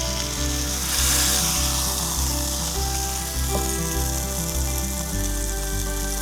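Background music with a stepping bass line, over the even hiss of food sizzling in a frying pan.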